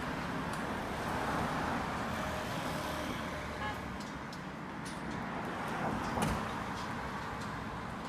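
City street traffic: cars driving past on the road, a steady rush of engine and tyre noise. A short sharp clack comes about six seconds in.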